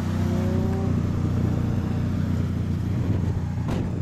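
Car engine idling steadily, a low even hum, with one sharp click near the end.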